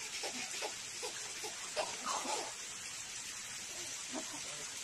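A baby giggling and squealing in short bursts, the loudest squeal about two seconds in, over a steady hiss.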